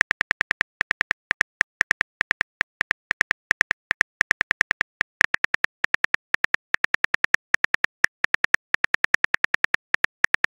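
Phone on-screen keyboard click sounds from rapid typing, about six short pitched clicks a second in an uneven rhythm, with brief pauses twice.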